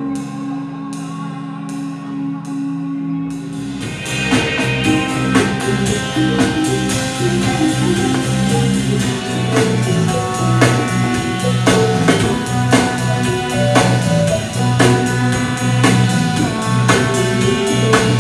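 Live krautrock band music: a held droning chord with a steady pulse. About four seconds in, drums, bass guitar and electric guitar come in together and the music gets louder.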